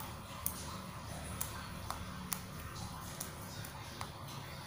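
A metal spoon clinking sharply against a saucepan about six times while tea bags are stirred and pressed in hot water, over a steady low background noise.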